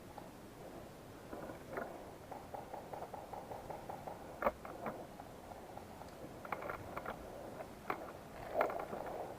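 Faint rustling and scuffing, with a few sharp clicks or snaps: one about four and a half seconds in, a short cluster around seven seconds, and two more near the end.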